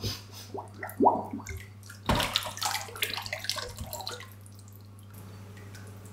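Wet sloshing and splashing as hands press and roll a soft sheet in a shallow tray, busiest from about two seconds in and dying away after about four seconds, over a steady low hum.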